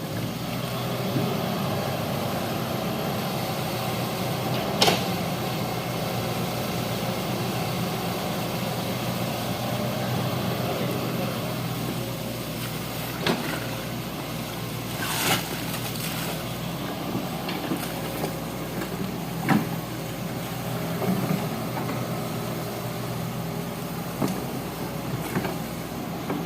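Hitachi excavator's diesel engine running steadily, with a few sharp knocks along the way.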